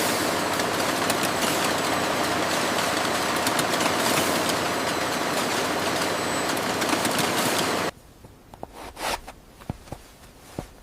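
Factory machinery running with a loud, steady mechanical noise that cuts off suddenly about eight seconds in, followed by a few faint clicks.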